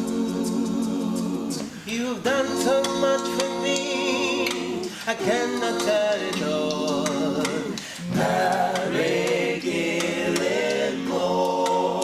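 A small vocal group singing gospel a cappella in close harmony, holding chords with vibrato. There are short breaks between phrases about every three seconds.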